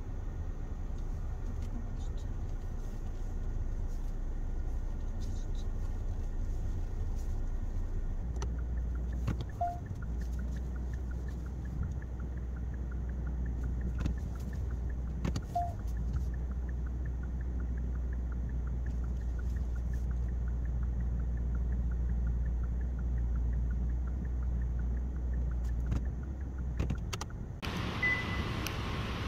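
Steady low hum inside a Kia SUV's cabin as it reverses slowly into a parking space, played at double speed, with faint regular ticking through the middle and two short tones. Near the end the sound changes to the garage outside the car, with a short high beep.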